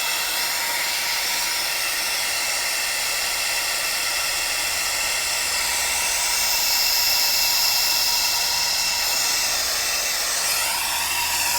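Gas plumbing torch flame hissing steadily as it heats a 1.5-inch copper fitting for soldering. The hiss grows brighter for a few seconds in the middle.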